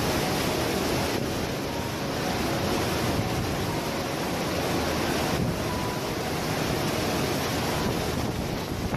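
Strong gusting wind and heavy rain of a thunderstorm, a loud steady rush, with the wind buffeting the microphone.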